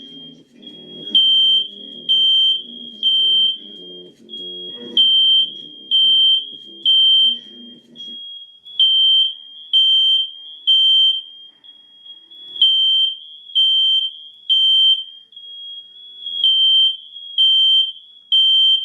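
Fire alarm beeping a high-pitched tone in repeated groups of three, about one beep a second, with a short pause between groups: the temporal-three evacuation signal.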